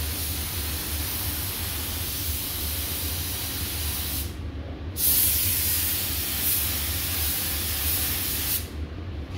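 Paint spray gun spraying a light coat of silver base coat in two passes: a steady hiss that stops briefly about four seconds in, then a louder second pass that cuts off near the end. A steady low hum of the spray booth's ventilation runs underneath.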